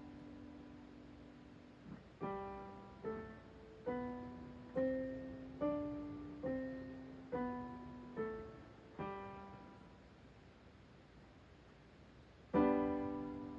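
Digital piano playing a pentachord exercise: a held chord dies away, then nine evenly spaced notes, about one a second, step up five notes and back down. After a short pause a loud full chord is struck near the end.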